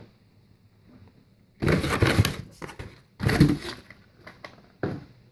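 Cardboard packaging being rustled and knocked as items are taken out of the box, in two main bursts of noise about two and three and a half seconds in, with a smaller knock near the end.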